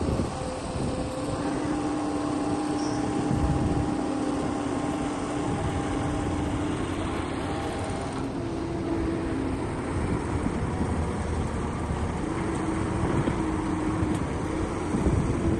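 Heavy-equipment diesel engine running steadily, with a hum that comes and goes.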